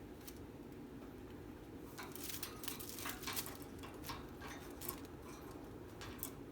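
Cockatiels moving about: a flurry of light scratches and clicks for a few seconds in the middle, over a steady low hum.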